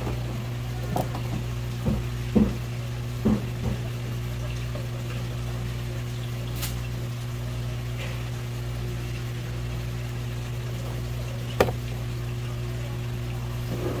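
A steady low mechanical hum runs throughout. Over it come several sharp knocks in the first few seconds and one louder knock near the end, like hard objects set down or tapped on a work surface.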